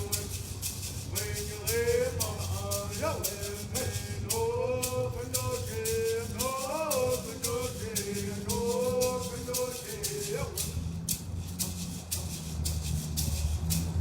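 A single voice singing a chant-like song, accompanied by a hand rattle shaken in a steady even beat. The singing stops about ten and a half seconds in, and the rattle carries on for a few seconds more before stopping near the end.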